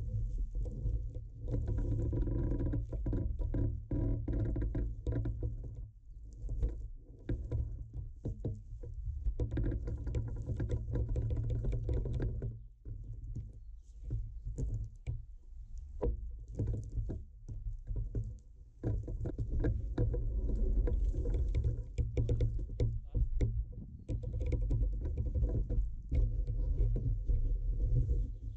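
Wooden bushcraft crane and hemp rope creaking and clicking under the weight of a slung stone as it is swung and lowered, many short creaks coming in irregular runs over a deep, steady rumble.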